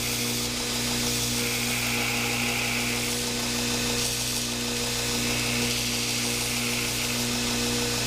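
2x72 belt grinder running with its motor humming steadily while the abrasive belt grinds the steel knife blank, giving a continuous hiss over the hum.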